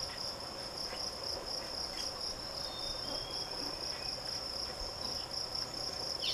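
Steady, high-pitched insect trill, unbroken and rapidly pulsing, with a few faint short chirps about three seconds in.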